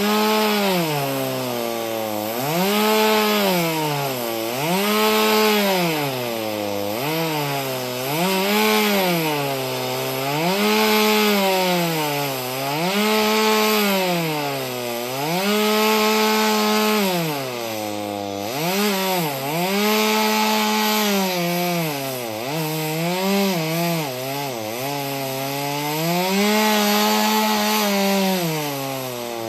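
Two-stroke chainsaw on a chainsaw mill, running at full throttle through a log. Its engine pitch dips and recovers over and over, about every two seconds.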